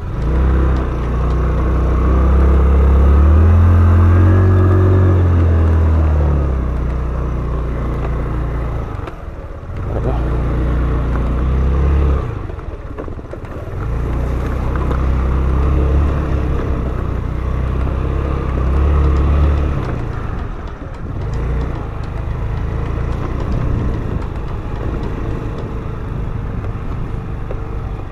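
Italika WS150 scooter's 150 cc single-cylinder four-stroke engine pulling away on a dirt trail, revving up under throttle and easing off several times.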